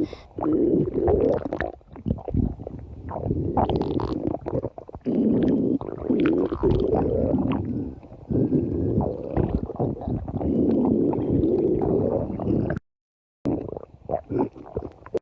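A person's stomach growling: long, low rumbles one after another with short breaks between them. The sound cuts to dead silence twice near the end.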